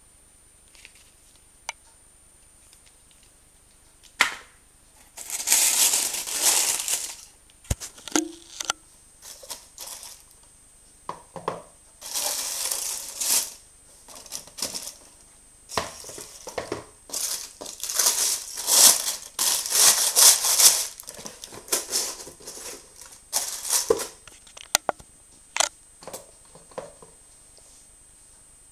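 Tissue paper rustling and crinkling in several bursts as a football boot is unwrapped in its shoebox, with a few sharp clicks and taps between.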